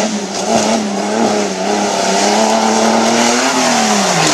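Jeep Cherokee's engine held at high revs under full throttle as the truck is driven hard over rough dirt obstacles; the pitch wavers up and down, then drops away near the end as the throttle comes off.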